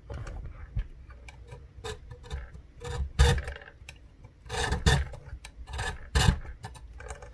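A hand file rasping across a key blank in separate back-and-forth strokes, the strongest about a second and a half apart, deepening one cut of a hand-made ASSA key.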